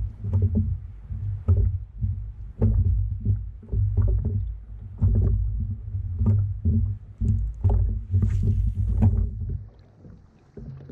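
Kayak being paddled: a paddle stroke about every second and a bit, with water sloshing and knocking against the hull and a brief splash of drips about eight seconds in.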